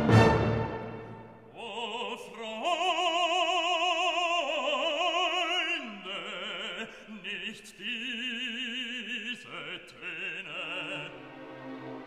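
Music: an orchestral chord dies away at the start, then an operatic voice sings long held notes with strong vibrato, moving to a new note every second or two.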